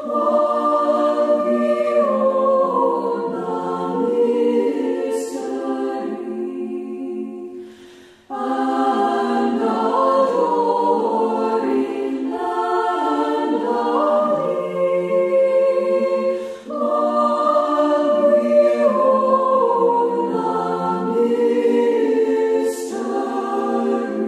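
Unaccompanied choral singing in slow, sustained chords. It moves in long phrases of about eight seconds, with a brief breath-break about eight seconds in and again about sixteen and a half seconds in.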